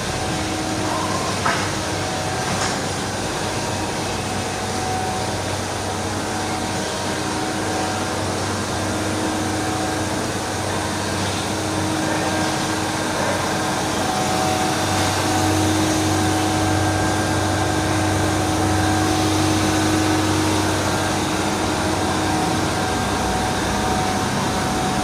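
Crystal ice machine running with a steady mechanical hum.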